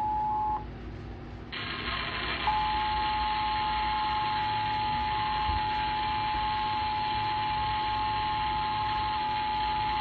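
Emergency Alert System attention signal played through a television's speaker: a steady, piercing alert tone that breaks off about half a second in and comes back at about two and a half seconds, over a steady broadcast hiss.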